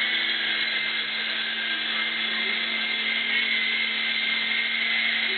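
Small three-channel RC helicopter's electric motors and rotors running with a steady high-pitched whine.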